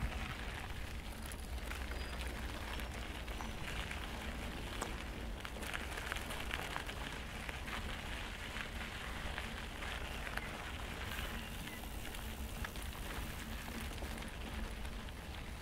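Mountain bike tyres rolling over a dry dirt trail: a steady rushing noise full of small crackling clicks from grit and stones, over a low rumble.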